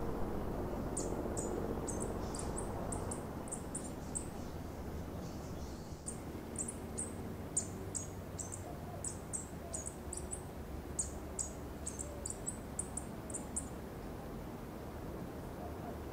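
Vervain hummingbird singing from a treetop perch: a long run of thin, very high squeaky notes, about three a second, pausing briefly about four seconds in and stopping a couple of seconds before the end. A steady low rush runs underneath.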